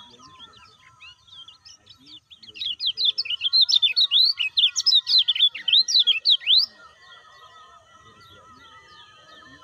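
Caged kecial kuning white-eye singing a fast, loud burst of chattering, twittering notes lasting about four seconds, starting a couple of seconds in and stopping abruptly. Fainter scattered chirps and thin, wavering whistles from other birds run underneath before and after the burst.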